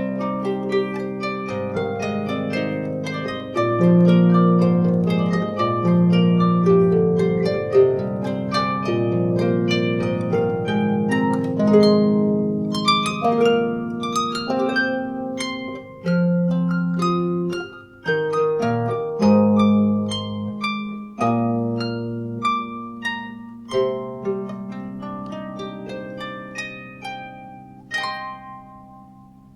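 Solo harp built by Alexander Anushat, plucked: a slow melody over bass notes and chords. The playing thins out in the last few seconds, with a final pluck that rings and fades away.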